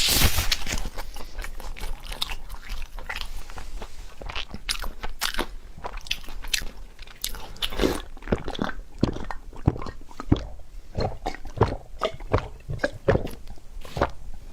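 Close-miked eating: a person biting and chewing crisp food, with many sharp, irregular crunches throughout, densest in the first second.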